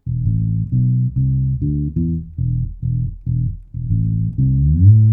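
Fretless Tiny Boy Bass mini bass with flatwound strings, its tone control turned fully down, played through a bass amp: a run of short plucked notes, about two a second, ending with a slide up into a long held note. The tone sounds dark, with little above the lowest range.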